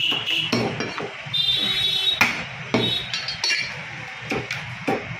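A heavy butcher's knife chopping through goat ribs onto a wooden block, in a series of sharp, irregular strikes. A brief high ringing is heard about a second and a half in.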